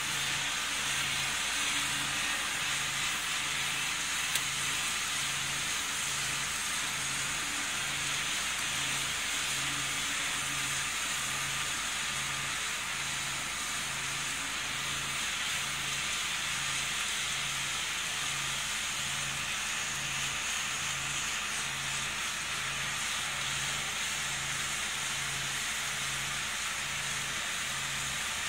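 Steady hiss of heavy rain falling on paving, with a faint low hum pulsing about one and a half times a second underneath.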